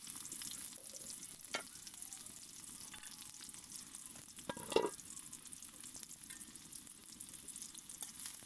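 Sliced onions sizzling in hot oil in a metal kadai over a wood fire: a steady frying hiss. A short knock sounds about halfway through, with a fainter one early on.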